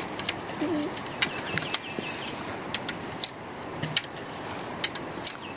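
Wooden poles and sticks knocking and clicking as they are handled, with irregular sharp knocks a few times a second.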